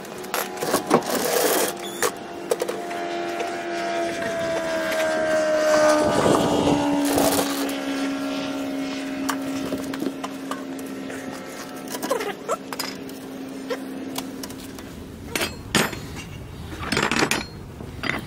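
Metal clanks and scrapes from handling a rear axle housing and tools, over an engine drone that slowly falls in pitch, grows loudest about six seconds in and then fades. Near the end there are sharper clicks from sockets and a ratchet in a socket set.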